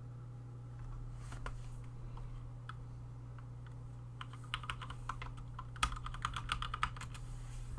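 Typing on a computer keyboard: a few scattered clicks, then a quick run of keystrokes in the second half, over a steady low hum.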